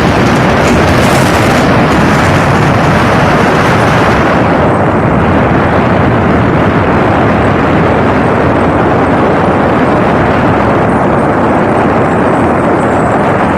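Motorboat under way, its engine noise mixed with a loud, steady rush of wind and water on the microphone; the hissing top end drops away about four seconds in.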